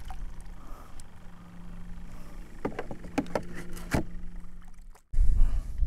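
A few sharp knocks and clicks of gear being handled against a plastic fishing kayak, over a faint steady hum. About five seconds in the sound cuts out and gives way to a louder low rumble of wind on the microphone.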